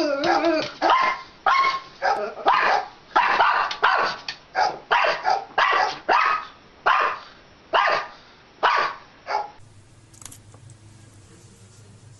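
A dog barking in a quick, steady series of about fifteen short barks, stopping about nine and a half seconds in. A faint low hum follows.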